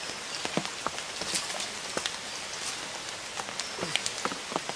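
Water splashing and pattering at the bank as a hooked fish thrashes at the surface, in many small irregular splashes over a steady hiss.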